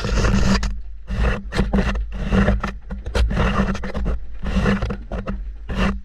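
Laundry tumbling in a front-loading washing machine drum, heard from a camera inside it: clothes rubbing and scraping against the camera in loud repeated surges, about one or two a second, which start suddenly and stop abruptly near the end.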